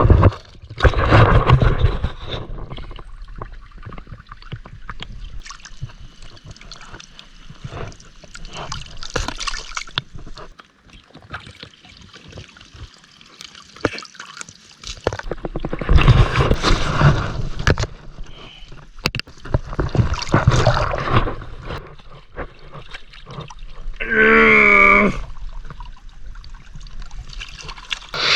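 Water splashing and gurgling in uneven surges, with a short wavering pitched call about three-quarters of the way through.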